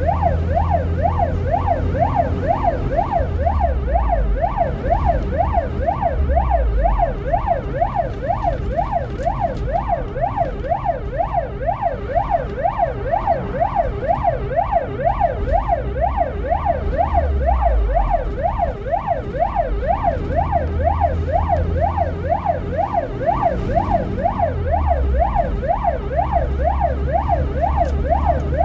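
Ambulance siren in a fast wail, rising and falling about twice a second, heard from inside the cab over the low drone of the vehicle's engine and road noise. The drone changes pitch a few times.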